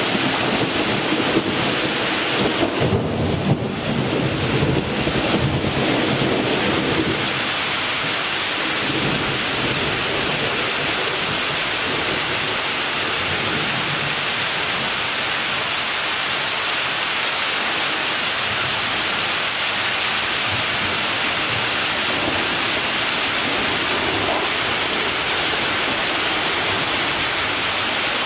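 Thunder rumbling and dying away over the first several seconds, with steady rain falling throughout.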